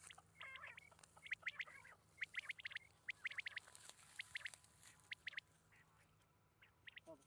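Quail (batair) calling: groups of three or four short, sharp, high chirps repeated again and again, fading out after about five seconds.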